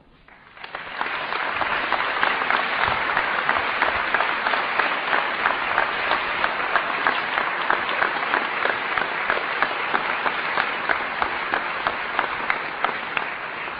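Audience applauding: many people clapping together, swelling within the first second, holding steady, and starting to die away near the end.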